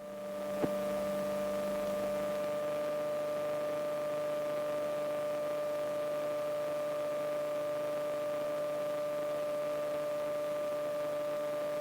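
Steady electrical hum and whine in the intercom audio feed recorded into the GoPro, a fixed set of tones over faint hiss, with one small click about half a second in.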